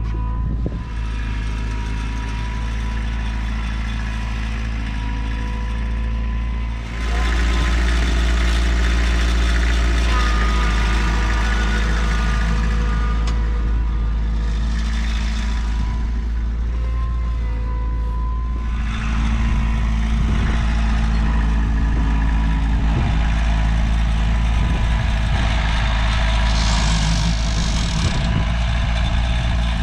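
Vehicle engine running steadily with a deep hum, picking up revs or load about seven seconds in and shifting again partway through.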